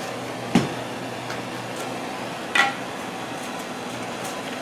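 Handheld gas torch burning with a steady hiss, lit to heat a metal rod for melting holes in foam. Two sharp knocks, about two seconds apart, stand out over it.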